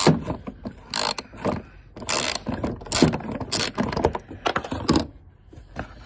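Hand ratchet with a long extension clicking in quick back-and-forth strokes as a bolt is worked loose, about two strokes a second, stopping about five seconds in.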